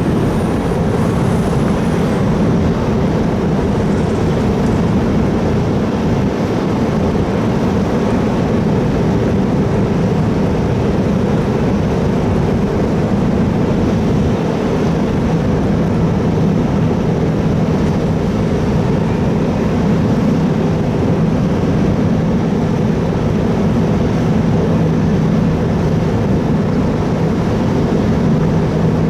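Steady, loud drone of a large car ferry's engines and machinery, a constant low hum under a wash of noise.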